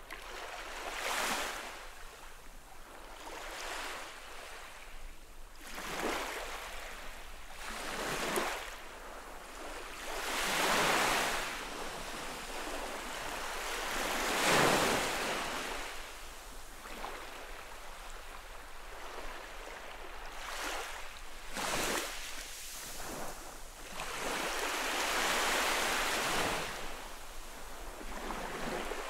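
Small saltwater waves gently lapping and washing up a sandy shore, a soft rush every two to four seconds, the biggest one about halfway through.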